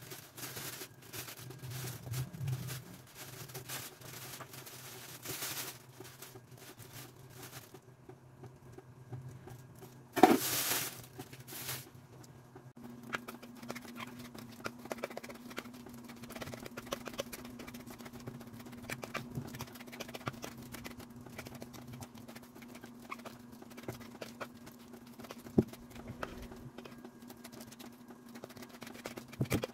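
Overripe saba bananas being mashed with a fork in a bowl: many small clicks and taps of the fork against the bowl. In the first seconds there is scraping and crinkling from the knife and plastic bag, and one loud knock about ten seconds in. A steady low hum starts a little before halfway.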